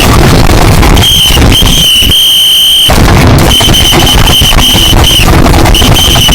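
Alarm sound playing very loud and distorted: a high, shrill steady tone sounding in blasts of one to two seconds with short breaks, over harsh crackling noise.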